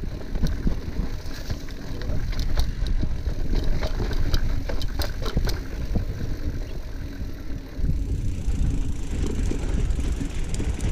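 Mountain bike descending a dirt trail: wind buffeting the camera's microphone and tyres rolling over dirt make a heavy low rumble. Sharp rattles and clicks come from the bike jolting over bumps, thickest from about two to six seconds in.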